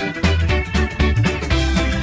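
Background music with a steady beat, drum hits and a heavy bass line.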